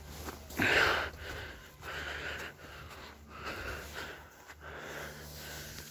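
A person breathing hard close to the microphone, with rough, raspy breaths about once a second; the loudest comes a little under a second in. This is typical of the laboured breathing of someone running.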